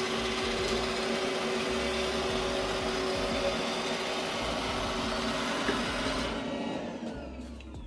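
iRobot Roomba i7+ robot vacuum running steadily as it heads back to its dock, then its motor winding down with a falling whine near the end.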